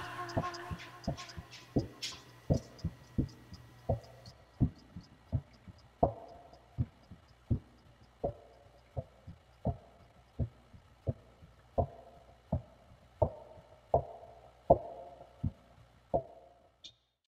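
Regular low thumps, one about every three quarters of a second, with a faint fast ticking above them for the first few seconds; the thumping stops suddenly near the end.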